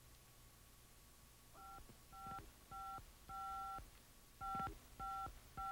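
Keypad tones of a handheld phone as a number is dialed: seven short beeps, each with a key click, the fourth held a little longer, and a pause before the last three.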